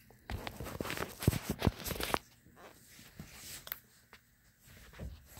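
Handling noise: a quick run of rustles and small knocks as toy cars and the filming phone are moved about over carpet, lasting about two seconds, then fainter scattered rustles and a couple of light taps.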